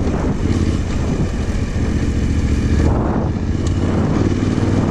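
Yamaha Ténéré 700's parallel-twin engine running steadily as the bike rides over dirt, mixed with wind rushing over the action camera's microphone.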